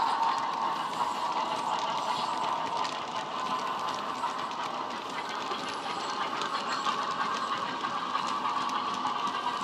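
OO gauge model freight wagons rolling past on track, their wheels clicking over the rail joints in a steady clickety-clack. Behind it, the Class 47's diesel sound from its decoder speaker carries on as the locomotive moves away.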